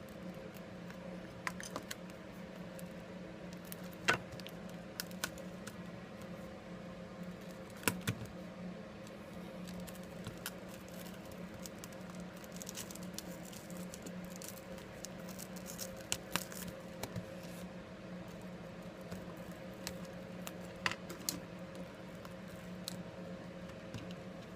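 Irregular small clicks, ticks and scrapes of tools prying at the glued, cracked front screen of a Samsung Galaxy S5, with sharper clicks about 4 and 8 seconds in, over a steady low hum.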